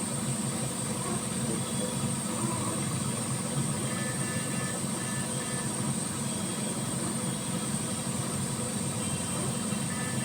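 Steady machine drone with a constant high hiss, and a few faint short beeps about four seconds in and near the end.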